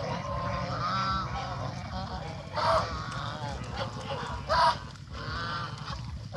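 Domestic geese calling continually in short, arched calls, with two louder honks about a third and two thirds of the way through.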